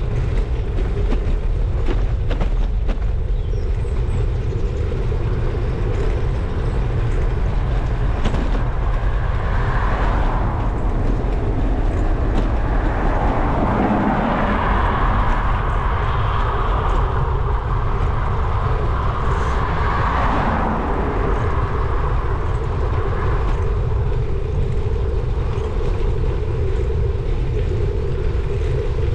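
Wind buffeting a bicycle-mounted camera's microphone while riding, with steady tyre and road noise. A louder hiss swells in the middle stretch.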